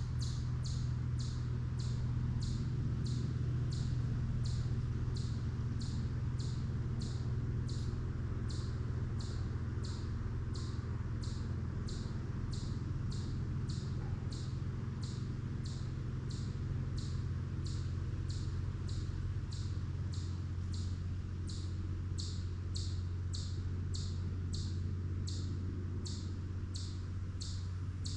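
A small animal's high, sharp chip call repeated steadily, about three every two seconds, over a steady low hum.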